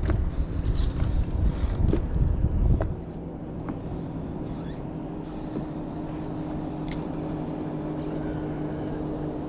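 Wind buffeting the microphone for about three seconds, then a steady low hum from the fishing boat's motor.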